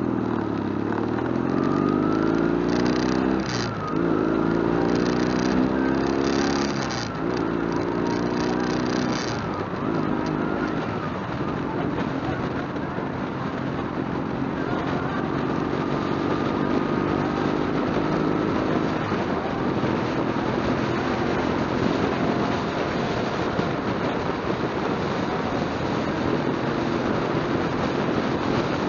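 Motorcycle engine accelerating away, its pitch climbing and dropping back with several upshifts in the first ten seconds or so, then running steadily at cruising speed under a constant rush of wind.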